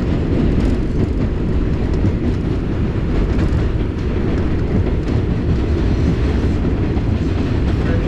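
New York City Subway 5 train running at speed, heard from inside the car: a steady, loud low rumble of wheels on the rails, with a few faint clicks from the track.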